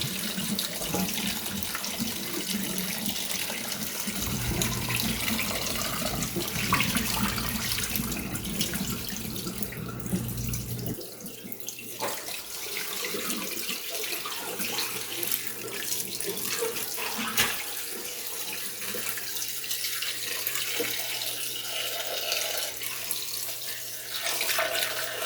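Kitchen tap water running and splashing over a raw turkey being rinsed in the sink. The flow eases briefly about eleven seconds in.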